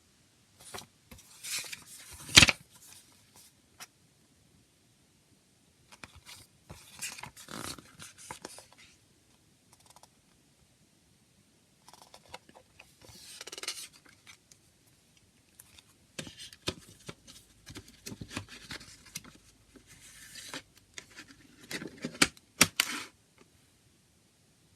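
A CD and its packaging being handled: spells of rubbing and scraping with sharp clicks, separated by short pauses, with the loudest clicks a couple of seconds in and again near the end.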